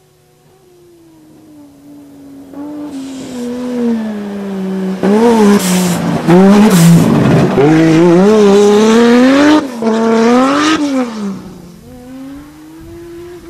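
Nissan Patrol's swapped RB25DET turbocharged straight-six being driven hard: the engine note swells from faint to very loud, rising and falling in pitch as it is revved for about six seconds, with a hiss of tyre squeal, then fades away near the end.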